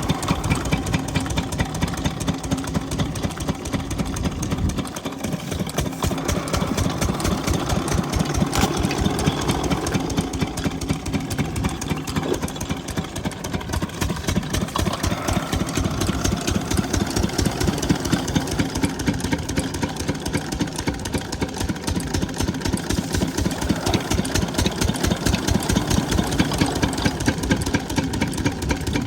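12 hp diesel water-pump engine running steadily with an even, rhythmic chug.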